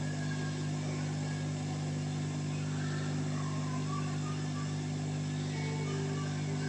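Steady low hum at an even level, made of several low pitches held without change.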